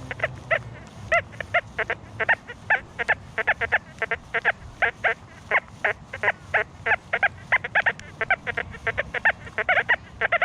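XP Deus II metal detector giving a rapid run of short tones, several a second, each bending slightly in pitch, as the coil sweeps over trashy ground. The detectorist takes these iron-type tones for buried foil.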